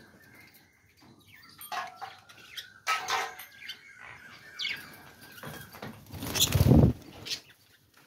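Budgerigars in a cage chirping and warbling in short, scattered calls, with a loud rustling burst about six and a half seconds in.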